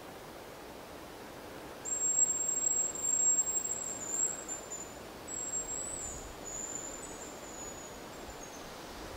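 Hazel grouse decoy whistle blown close to the microphone, imitating the male hazel grouse's song. About two seconds in comes a thin, very high whistle: one long held note, then shorter notes that fall in pitch.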